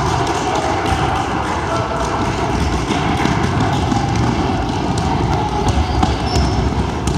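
Basketball game on a hardwood gym floor: a ball being dribbled and players running, with voices in the background.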